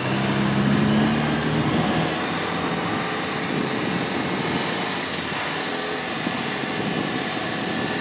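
Jeep Wrangler JL with a near-straight-through exhaust running while driving in fresh snow. A steady engine note is clear for about the first two seconds, then gives way mostly to an even rushing noise.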